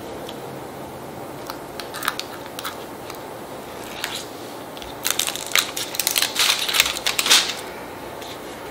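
A small paper box being handled while a thin string tied around it is pulled off: a few light clicks and rustles, then about two and a half seconds of loud, dense crinkling and scraping of paper.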